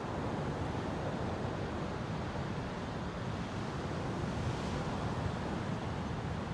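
Steady rush of ocean surf washing onto a beach, with some wind rumbling on the microphone.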